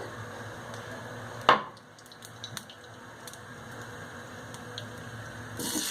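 Olive oil being poured into a frying pan, with a single knock about a second and a half in. A steady hiss comes in near the end.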